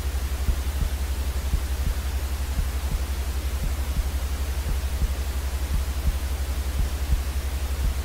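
Steady white noise for soothing a baby: an even hiss over a much stronger deep low rumble that flutters quickly.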